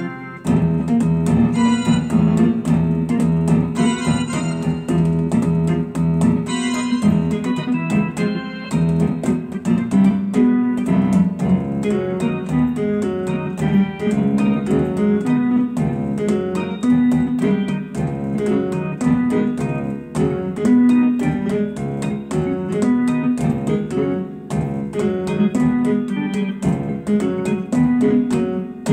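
Electronic keyboard with a harmony-array key layout, played live: a busy jazz-age-style piece with a repeating low chord pattern and quick notes above it.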